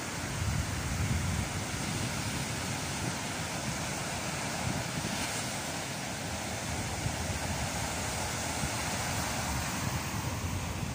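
Ocean surf breaking and washing up a sandy beach in a steady wash of noise, with wind buffeting the microphone, most strongly in the first second or so.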